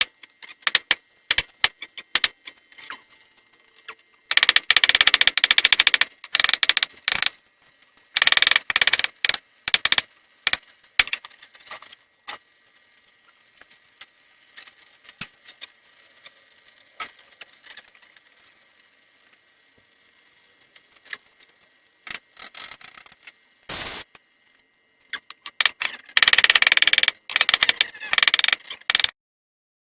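Hammer blows on hot steel sword stock at the anvil, coming in rapid spells of two to three seconds with sparse single knocks between. A faint steady high tone runs underneath.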